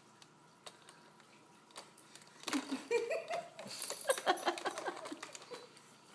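A baby's short fussing vocal sounds, starting about two and a half seconds in, mixed with light clicks and scrapes. This is an infant reacting to her first spoon-fed peas, which she does not like.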